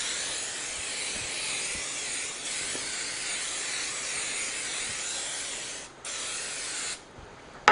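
Aerosol cooking spray hissing as it greases a glass baking dish. One long spray stops briefly about six seconds in, then a second short spray of about a second follows, with a sharp knock right at the end.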